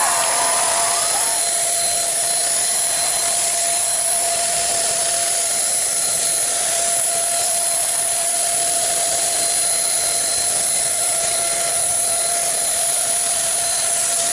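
Paint sprayer running steadily: an even hiss of spray with a steady motor whine underneath.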